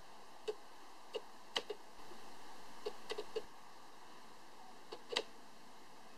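Small sharp clicks at irregular intervals, some in quick clusters of two or three, over a steady faint hiss.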